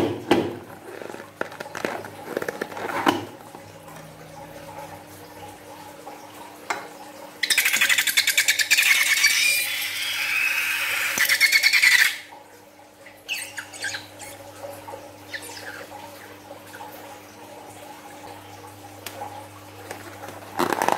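Liquid slime forced out of the neck of a latex balloon, a loud fluttering, sputtering squirt lasting about four seconds that starts about seven seconds in. Before and after it, soft rubbery handling of the balloon.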